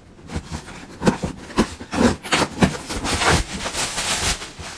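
Cardboard parcel wrapped in packing tape being torn open and handled: a quick, irregular run of scraping, tearing and crinkling rustles.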